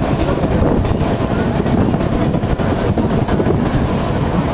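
A train running at speed: a steady, loud rumble of wheels and carriages on the track.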